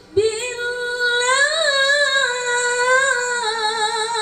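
A woman reciting the Qur'an in melodic tilawah style, holding one long drawn-out note with ornamented turns and a wavering vibrato. The pitch rises about one and a half seconds in, then settles lower.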